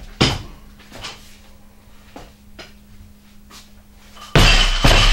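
Feet thudding and shuffling on a gym floor under a light barbell held in the catch: the small foot adjustments that show the catch position is off. About four seconds in, a loud clatter begins and keeps going.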